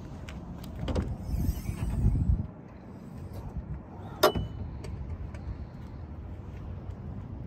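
Handheld-camera handling noise: low rumbling bumps for the first couple of seconds, then a single sharp click about four seconds in, over a steady low background.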